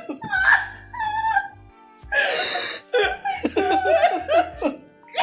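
People laughing in short bursts that rise and fall in pitch, over a quiet background music bed.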